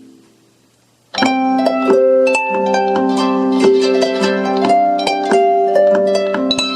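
A Samsung Galaxy Note 3 alarm tone, a harp-like plucked melody, playing through a SOEN TRANSIT Bluetooth speaker. A held chord fades out, and after about a second's pause the melody starts abruptly and runs on in quick, ringing notes.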